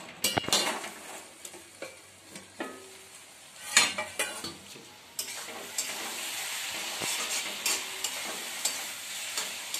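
Steel plate lid clinking against an aluminium kadai and clanking as it is lifted off, loudest about four seconds in. From about five seconds in, fish head and cabbage frying with a steady sizzle while a metal spatula stirs and scrapes the pan.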